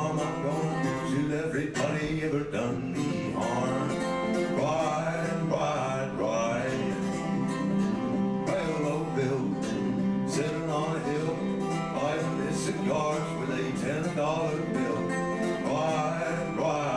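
Live solo acoustic guitar playing a folk tune, with a man singing over it in stretches.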